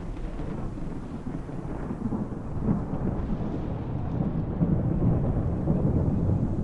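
Airbus helicopter's rotor making a low, dense rumble mixed with wind buffeting the microphone, growing steadily louder.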